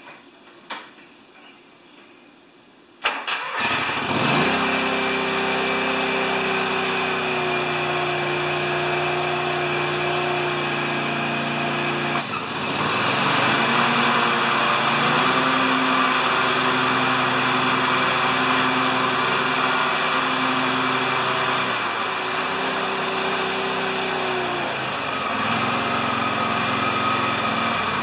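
A John Deere LX178 lawn tractor's engine starts about three seconds in and runs steadily. About twelve seconds in, a click and a brief dip are followed by a steady rushing whir over the engine as the mower deck spins up: the refitted electric PTO clutch is engaging the deck. Near the end the engine note drops.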